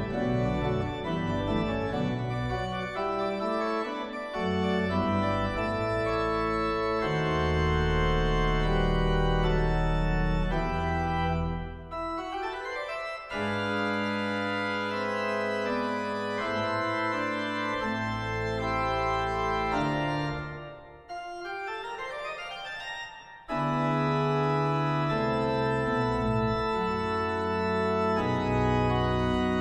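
Church pipe organ playing held chords over deep pedal notes. Twice the bass drops out and it goes quieter for a moment, a little before halfway and again about two-thirds in.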